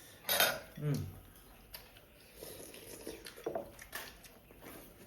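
Light clinks and taps of chopsticks and spoons against bowls and plates during a meal, with a short breathy vocal sound in the first second.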